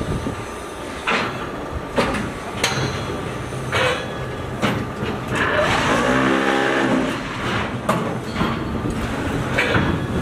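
Automatic concrete block molding machine and its pallet stacker running: a dense mechanical din with irregular metal clanks and knocks, and a pitched whine for about a second and a half past the middle.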